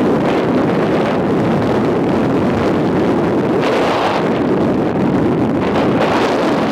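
Loud, steady rush of wind over the microphone of a camera on a rigid mountain bike riding at speed.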